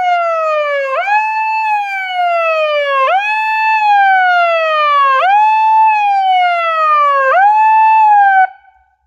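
Electronic siren wailing: each cycle sweeps up quickly and then falls slowly, repeating about every two seconds, before cutting off suddenly near the end.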